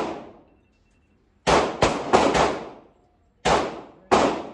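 Gunshots echoing in an indoor shooting range, each a sharp crack with a ringing tail. A quick string of four comes about a second and a half in, then two more near the end.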